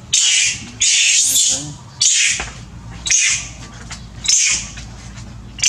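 Young long-tailed macaque screaming in five shrill cries, about one a second, a sign of pain as its wound is handled and cleaned.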